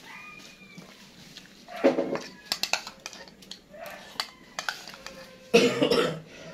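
Metal spoon clinking a few times against a ceramic bowl during eating, with two short vocal sounds, about two seconds in and near the end; the second is the loudest sound.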